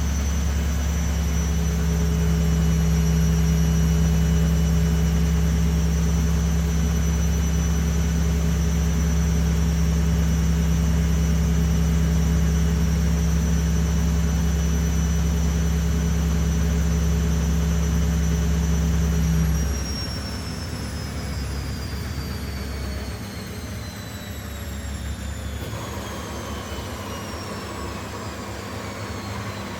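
Washing machine on a fast spin: a steady hum and whine from the motor and drum. About two-thirds of the way through the drive drops off and the drum coasts down, its whine falling steadily in pitch as it slows.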